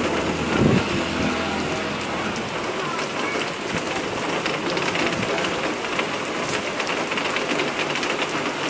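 Heavy rain pouring onto the street and surrounding surfaces, a steady hiss, with one brief low thump a little under a second in.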